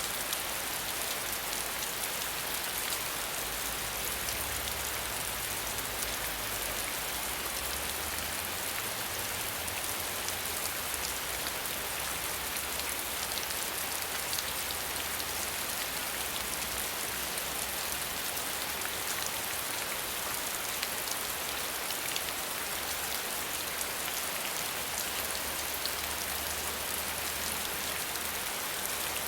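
Steady rain falling, with a fine patter of drops and no thunder.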